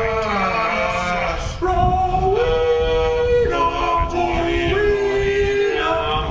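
Music with a male voice singing long held notes, moving between pitches every second or so.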